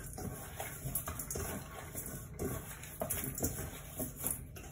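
Soft, irregular handling noises of food and dishes being worked on a kitchen counter, with a few light taps and clicks.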